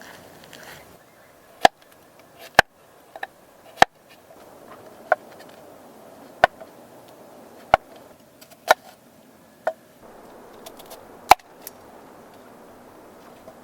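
Chopping: about ten sharp, separate strikes of a blade on wood, roughly one every second or so, at an uneven pace.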